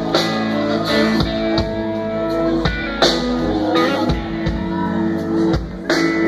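Rock band playing live in a theatre, with electric guitars, keyboard and drum kit, picked up by a phone's microphone in the audience.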